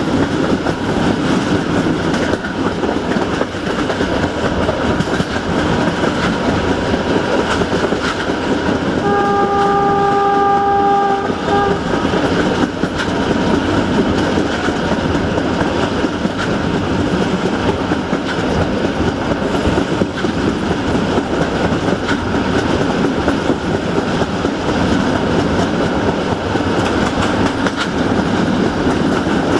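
Passenger train hauled by a CFR 060-DA diesel-electric locomotive running at speed, heard from an open coach window: steady rumble and clatter of the coach wheels on the rails. About nine seconds in the locomotive's horn sounds one long single-pitched note of about two and a half seconds, followed by a short blip.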